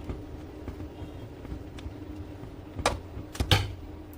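Two sharp clicks or knocks about half a second apart, from printer parts being handled and fitted during reassembly, over a steady low hum.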